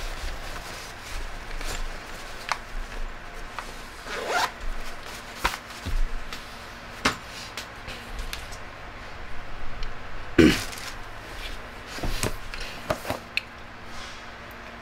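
Zipper of a small carrying bag being pulled a couple of times, the loudest stroke about ten seconds in, among clicks and knocks of the set being handled.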